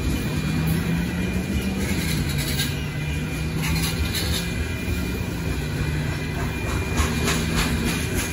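Loaded freight cars of a gypsum train rolling through a railroad crossing: a steady rumble of wheels on rail with a low drone, and a run of sharp rail-joint clicks about seven seconds in.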